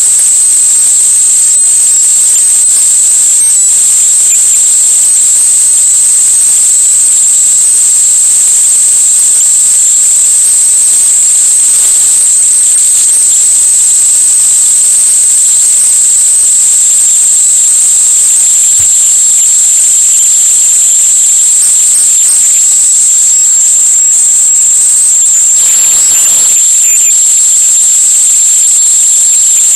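Loud, steady high-pitched electronic whine over a faint hiss, unbroken throughout.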